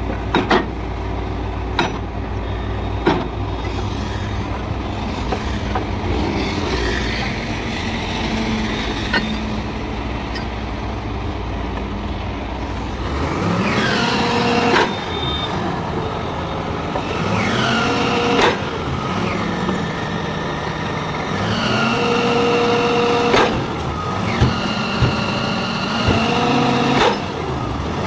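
Truck-mounted borewell drilling rig running, with sharp metal clanks now and then. From about halfway, its pitch rises and falls several times as the rig is worked from its levers.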